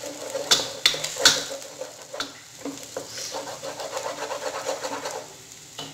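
Wooden spatula scraping and knocking against a nonstick pan while scrambling eggs, with a few sharp knocks in the first second and a half. The eggs sizzle in the oil underneath.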